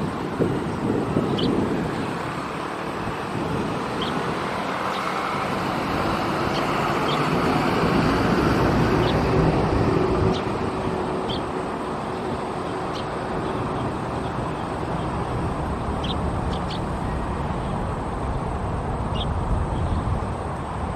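Steady road-traffic noise, with a dozen or so short, high chirps of Eurasian tree sparrows scattered through it.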